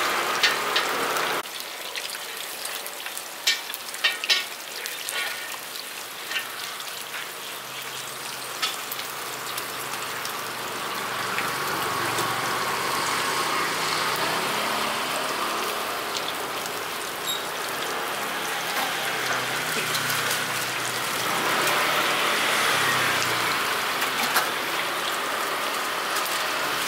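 Scallion dough deep-frying in a wide pan of hot oil: a steady sizzle, with a few sharp clicks about three to five seconds in.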